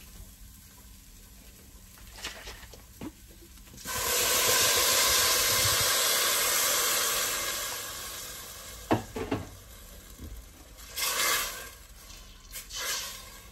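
Vegetable broth poured into a hot pot of sautéed onions, garlic and dried split peas, sizzling loudly for about four seconds from about four seconds in, then dying away. After that come a few knocks and short scrapes of a spatula stirring in the stainless steel pot.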